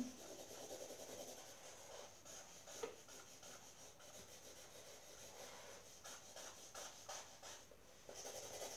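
Faint scratching and rubbing of felt-tip markers drawing on paper, in soft irregular strokes.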